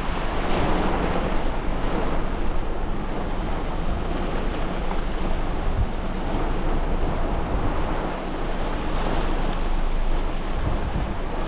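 Heavy rain and strong wind of a severe thunderstorm, a steady rushing noise, with wind rumbling on the microphone.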